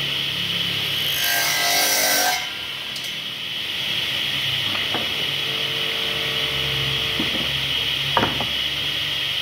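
Overhead-mounted circular saw running with a steady high whine as a wooden plank is fed under the blade. The blade cuts loudly into the wood for about a second and a half soon after the start. A couple of short knocks come later as the board is pushed along.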